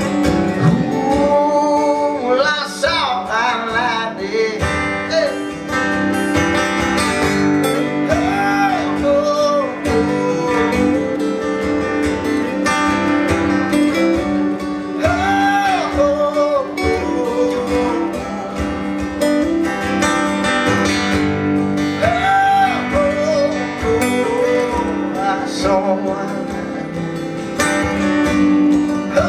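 Live country song on a strummed acoustic guitar, with a man singing long, gliding vocal lines over the chords.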